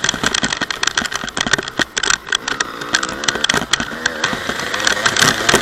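Honda CR250 single-cylinder two-stroke engine running with the revs rising and falling, under a dense crackle of short knocks and rattles.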